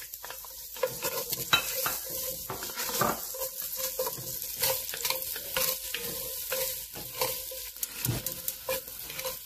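Chopped onions sizzling in hot oil in an enameled cast-iron Dutch oven, stirred with a wooden spatula that scrapes and knocks against the pot many times.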